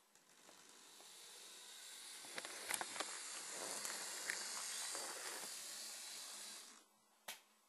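Lima OO gauge Class 31 model diesel locomotive running along the track, a little noisy: a hissing electric motor buzz with a few clicks that grows louder to a peak about four seconds in, then fades and stops abruptly near the end, followed by a single click.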